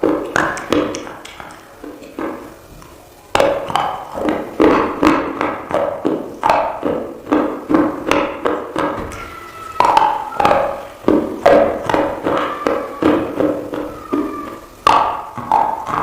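Close-up crunching and chewing of water-soaked edible clay (khawa), a steady run of crisp crunches about two a second, after a quieter moment near the start.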